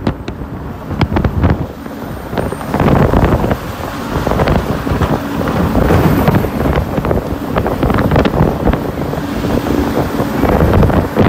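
Wind buffeting a phone's microphone in gusts on the open top deck of a moving bus, over a rumble of road traffic.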